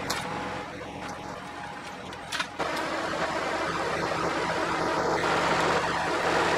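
Diesel engine of a Massey Ferguson narrow vineyard tractor running steadily while pulling a sensor-arm inter-row hoe. It gets clearly louder about two and a half seconds in.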